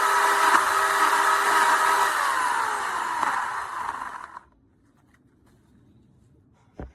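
WEN 15-amp corded electric chainsaw motor running at a steady high whine, then winding down in pitch and stopping once the trigger is let go. A single short click comes near the end.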